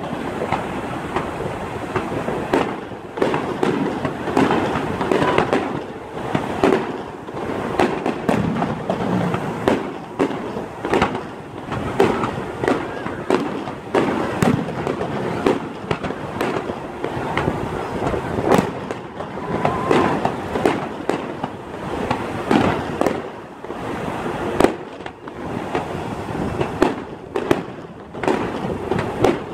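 Aerial fireworks display: shells launching and bursting in a fast, irregular run of bangs and pops, several a second, with no let-up.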